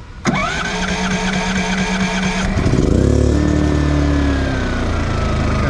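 Engine 1 of a GENMAX GM14000i-HSB dual-engine inverter generator, running on propane, being started by its electric starter: it cranks with a pulsing whine for about two seconds, then catches and runs, its speed easing down as it settles.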